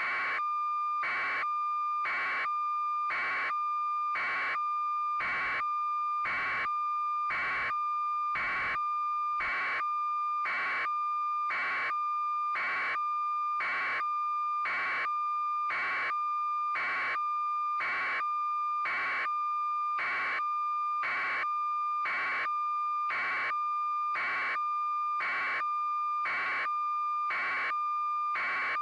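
A steady high electronic tone with a louder beep pulsing about once a second, unchanging throughout.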